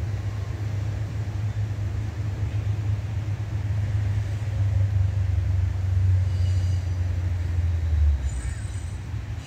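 Low, steady rumble as an Amtrak Keystone passenger train approaches in the distance. The rumble drops away sharply about eight seconds in, and faint high ringing tones come in twice near the end.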